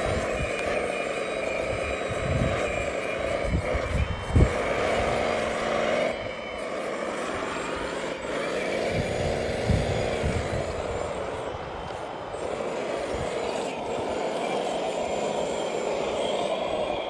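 Radio-controlled model wheel loader's motors whining, rising and falling in pitch as it drives and works its bucket in the dirt, with a few low thumps in the first few seconds.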